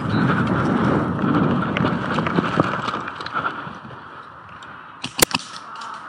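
Movement and wind noise on a head-mounted camera as the player shifts position, loudest in the first three seconds and then easing off. One sharp crack comes about five seconds in.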